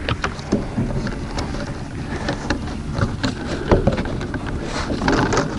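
Black corrugated plastic drain pipe being handled and pushed onto a PVC elbow: scattered light clicks and rattles of plastic over a steady low rumble of wind on the microphone.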